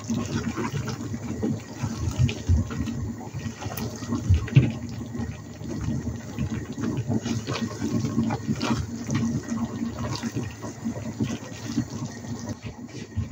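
Wooden spatula stirring and turning crumpet pieces through a thick, wet tomato masala in a non-stick pan: irregular wet squelches and scrapes with small knocks against the pan, one louder knock about four and a half seconds in.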